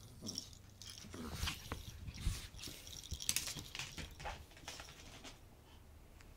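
Scattered soft taps, scuffs and rustles of a small chihuahua playing with a fabric toy ball and scampering across the floor, in irregular bursts that are loudest between about two and three and a half seconds in.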